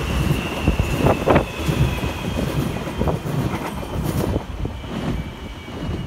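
Renfe commuter electric train passing close by, its wheels rumbling on the rails with a few sharp knocks and a thin, steady high whine. The whine fades after about four seconds as the train moves away.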